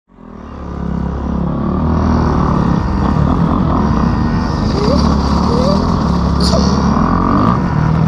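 Small dirt bike engine running steadily, fading in over the first second or so.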